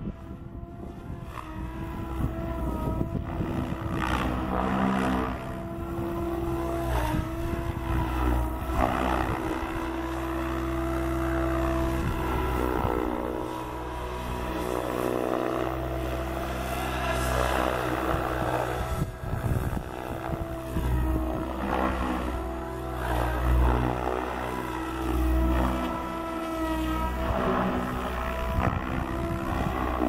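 Electric SAB Goblin 770 RC helicopter in flight: the main rotor whirs over the electric motor's whine. The pitch bends up and down and the loudness swells and dips repeatedly as it is flown through manoeuvres.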